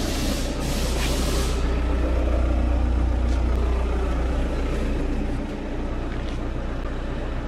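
A steady low machine drone at a tyre repair shop, with two short bursts of hissing compressed air in the first second and a half.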